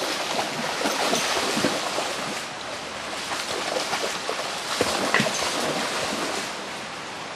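A dog swimming and splashing in a river: irregular splashes and sloshing over a steady rush of water, easing off near the end.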